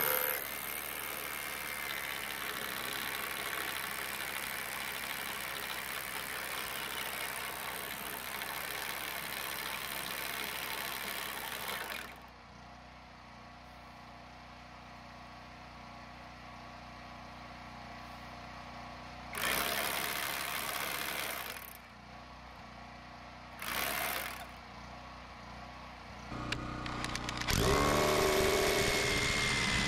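Hammer drill with a masonry bit boring through a wooden sill plate into the concrete foundation for anchor bolts. It runs in a long stretch, goes quieter, gives two short bursts, then spins up again near the end with a rising motor whine.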